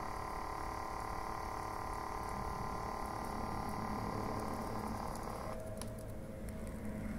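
Beer running from the tap of a Cooler Chopp canister dispenser into a glass: a steady pouring hiss with a faint whine, which cuts off suddenly about five and a half seconds in when the tap is shut.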